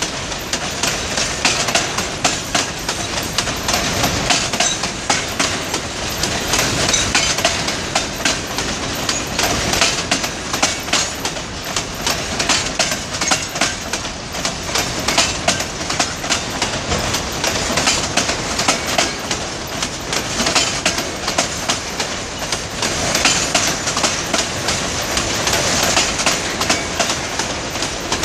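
Freight train wagons rolling past close by, their steel wheels clacking over the rail joints in a steady, continuous clatter over a rumbling hiss.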